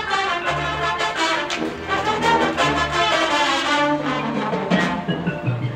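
Marching band playing: brass chords over a low bass line in repeated notes, with percussion.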